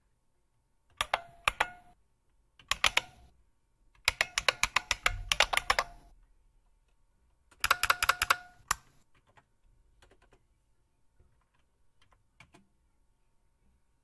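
Emulated IBM Model M buckling-spring keyboard clacks from the bucklespring program as a line is typed: four quick runs of sharp, slightly ringing key clicks. A few much fainter clicks follow near the end.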